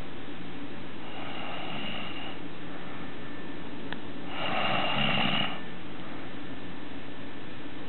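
A sleeping person snoring, two snores about three seconds apart, the second louder.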